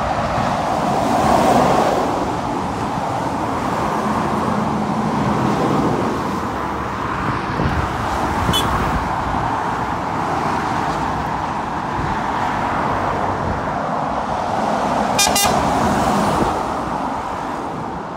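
Steady road noise of cars and lorries passing at speed on a dual carriageway below, mostly tyre roar with a low engine drone. A brief burst of rapid clicking comes near the end.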